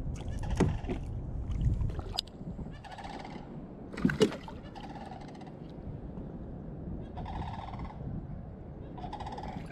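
A bird calling repeatedly, about four short harsh calls, and a splash about four seconds in as a small largemouth bass is dropped back into the lake beside the kayak. Low rumbling of handling on the kayak comes in the first two seconds.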